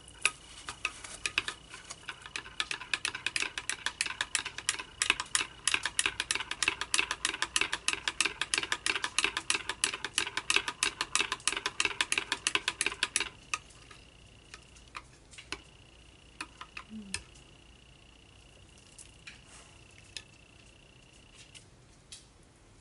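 Metal spoon stirring soap batter in a glass measuring cup, clinking against the glass several times a second for about thirteen seconds, then only occasional taps. The stirring is mixing more black oxide into the batter to darken it from gray.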